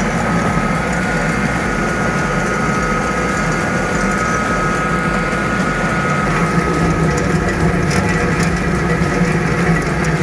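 Wood-processing machine running steadily: a continuous mechanical drone with a low hum and a high whine held on one note.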